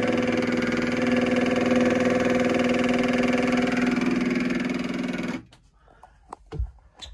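Narrowboat's electric fresh-water pump running on and on with a steady hum, never building pressure: the pump is faulty. It cuts off suddenly about five seconds in, and a few faint knocks follow.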